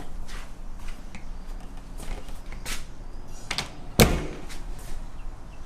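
Handling noises: scattered light clicks and knocks, with one sharp, louder knock about four seconds in.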